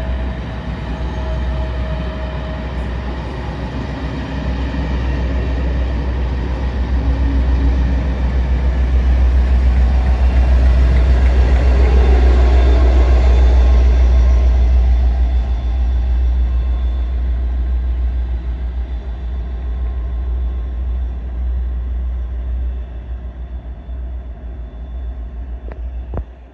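A train passing by, with a heavy low rumble that grows louder to a peak about halfway through and then fades away.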